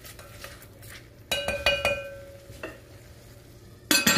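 Sliced onion and garlic frying gently in olive oil with a soft sizzle, stirred with a wooden spoon in a pot. A few ringing clinks come about a second and a half in, and a glass lid clatters down onto the pot near the end.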